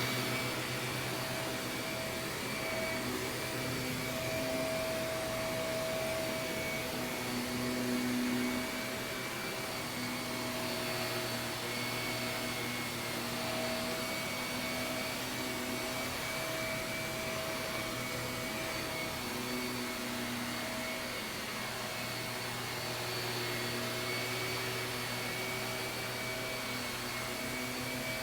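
Shark vacuum cleaner running steadily over carpet, a continuous motor hum with a high whine whose tones waver slightly as it is pushed back and forth.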